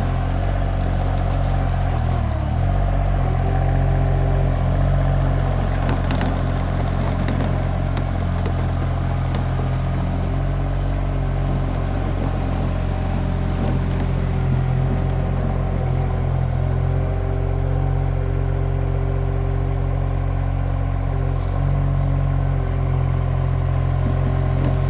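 Mini skid steer's engine running steadily under working load, its pitch shifting slightly now and then, with a few short metallic clanks as the bucket works.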